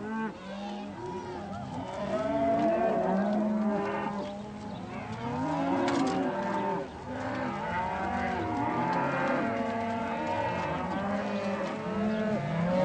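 A herd of cattle mooing, many animals calling over one another in long, overlapping moos. A single sharp click about six seconds in.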